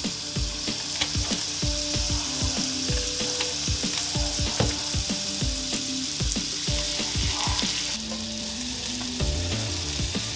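Butter sizzling and foaming as it melts in a hot cast-iron skillet, with light knocks and scrapes of a fork against the pan as the pats are pushed around.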